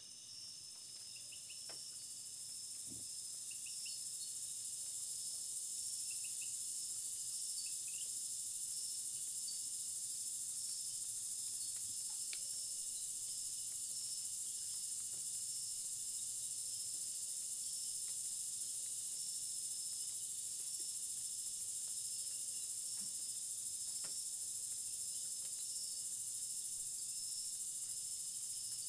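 Steady high-pitched chorus of insects, fading in over the first few seconds and then holding level, with a faint fast pulsing in it.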